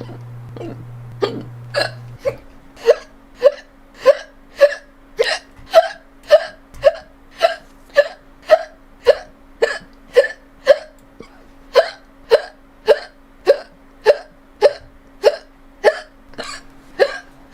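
A person hiccuping over and over, short high-pitched hics coming evenly about twice a second, with a faint steady hum underneath.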